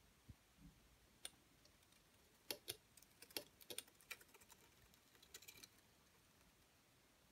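Faint, irregular clicks and crackles from a paper-craft mimosa as a hand presses on its stiff paper leaves, bunched in the middle of the stretch.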